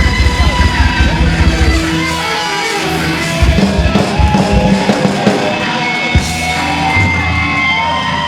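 Live punk rock band with distorted guitars, bass, drums and shouted vocals. The full band drives on for about two seconds, then the drums drop out and the guitars and bass are left ringing in held notes with sliding, squealing guitar tones, broken once by a single sharp hit, as the song winds down.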